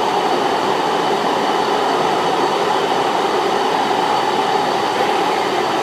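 TriMet MAX Blue Line light-rail train running, heard from inside the car: a steady, even rumble and hiss of the train under way.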